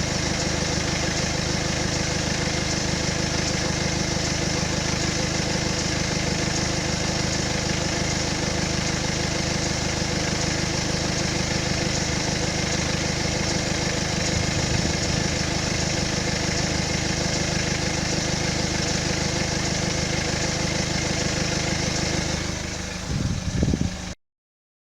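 BMW N47D20C 2.0-litre four-cylinder diesel engine running steadily at idle, with a few knocks near the end. The owner is chasing a strange noise that comes after the revs drop from 2,000 rpm and suspects the timing chain.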